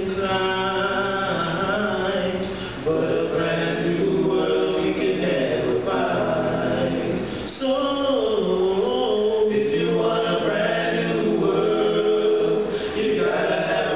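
Male vocal group singing a cappella in harmony through microphones, the voices holding long notes; the phrases break briefly about three and seven and a half seconds in.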